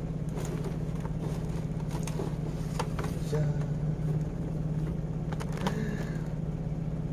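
Clear plastic clamshell packaging crackling and clicking as it is handled, in scattered short crackles, over a steady low hum.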